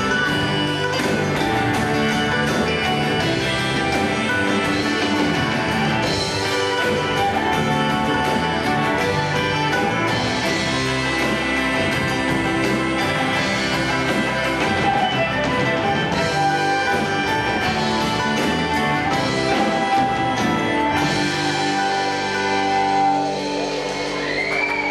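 Live folk band playing an instrumental passage: fiddle, acoustic guitar, mandolin, electric and bass guitars over a drum beat. The beat drops out about four-fifths of the way through, and the tune winds down near the end.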